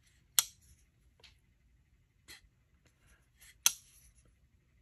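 CJRB Tigris folding knife's blade being flicked open and snapped shut on its ball-bearing pivot and liner lock: two sharp metallic clicks about three seconds apart, with a few faint ticks of handling between.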